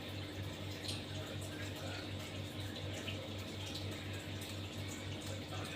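Low steady hum that pulses evenly several times a second, with faint hiss and a few small clicks.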